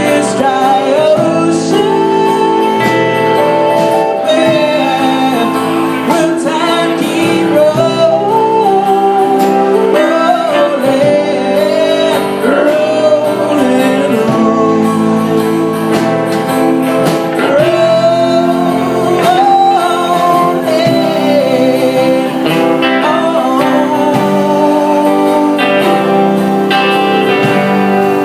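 Live acoustic band music: a lead vocal singing a wavering melody over strummed and plucked guitar.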